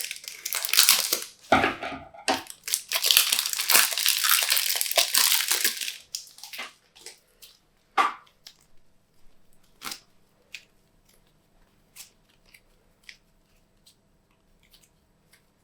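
Slime being worked by hand with things mixed into it: a dense crinkling, crushing crackle for about six seconds, then scattered small sticky pops and clicks that grow fainter.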